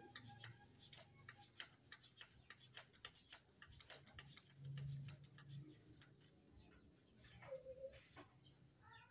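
Faint clicking of an Indeso speargun's hand pump being worked, over a steady high chirping of insects; a chicken clucks near the end.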